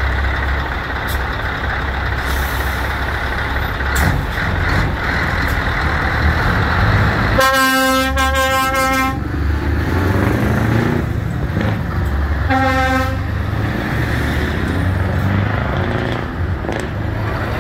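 Truck engines running with steady road noise. A truck horn sounds one long blast about seven seconds in and a short second blast a few seconds later.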